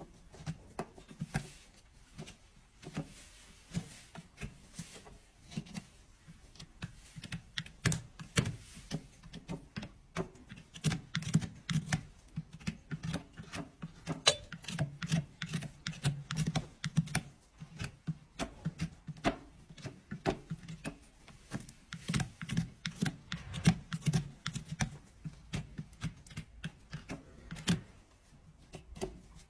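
Hoof-trimming tools cutting and paring a draft horse's overgrown hoof: a dense run of irregular sharp clicks and snaps, several a second, coming in louder clusters.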